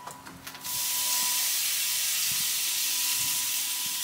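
Marinated fajita meat sizzling as it is laid onto hot laser-cut grill grates over a wood fire. The sizzle starts suddenly about half a second in and then holds steady and loud.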